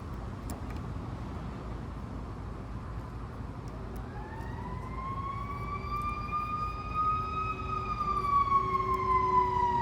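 Fire truck siren wailing as it passes: a single slow tone that comes in about four seconds in, rises, then falls away over a low rumble, growing louder toward the end.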